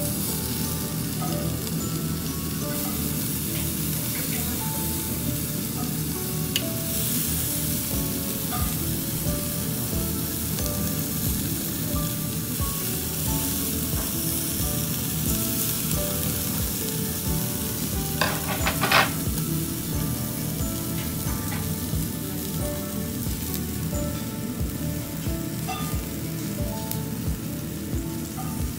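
Slices of beef sizzling steadily over charcoal on a yakiniku grill's wire mesh, with metal tongs moving the pieces. About two-thirds of the way in, two quick metallic clicks stand out.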